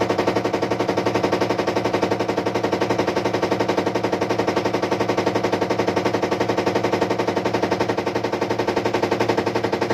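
IFB top-load washing machine running with a loud, fast, evenly repeating rattle over a steady hum: the abnormal noise that is its fault.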